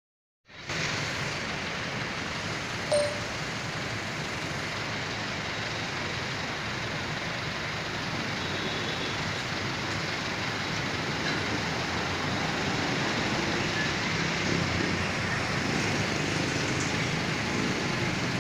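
Steady road traffic: the continuous rumble of cars and motorcycles passing on a city street, growing a little louder toward the end. A brief sharp sound stands out about three seconds in.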